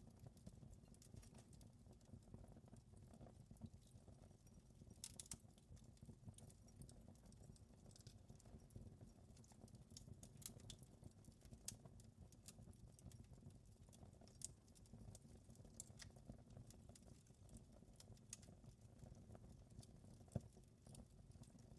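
Quiet wood fire crackling in a fireplace: a steady low rumble of burning with scattered sharp pops and snaps, and one louder pop near the end.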